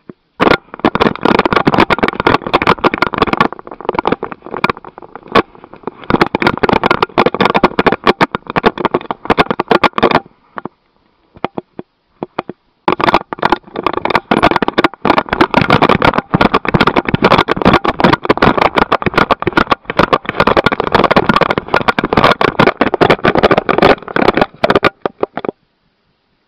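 Dense crackling, rustling and knocking handling noise from an action camera strapped to a puppy's harness, as the mount and harness rub and jolt against the camera while the dog moves. The sound cuts out completely for about two seconds near the middle and again near the end.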